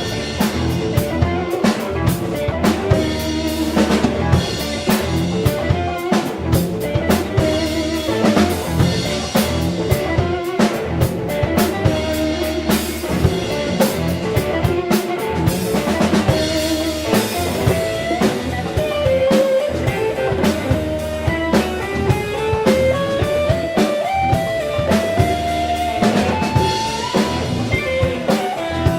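Blues band playing live, instrumental: a drum kit keeps a steady beat with rimshots under guitar. A guitar melody line climbs gradually in pitch in the second half.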